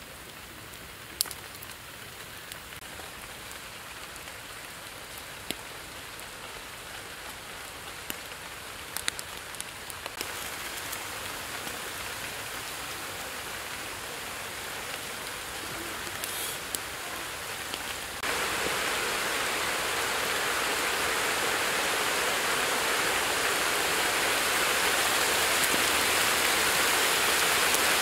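Steady rain falling, a dense hiss that grows louder, jumping up sharply about two-thirds of the way through. A few sharp pops stand out in the first half.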